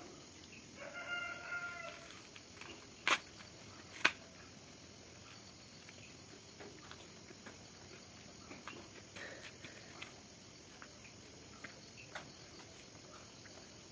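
Faint background with a short pitched animal call about a second in, and two sharp clicks a second apart a little after three seconds in, followed by scattered faint ticks.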